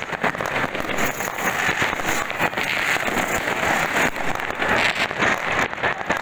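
Many firecrackers and fireworks going off at once: a dense, unbroken crackle of pops and bangs.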